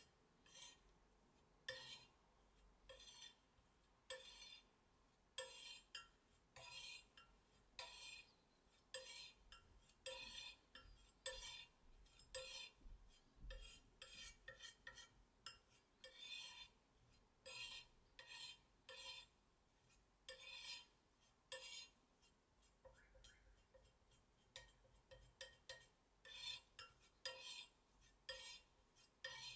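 Steel palette knife scraping and tapping on a glazed ceramic tile in quiet, repeated short strokes, about one or two a second, as a small pile of white powder is worked and spread.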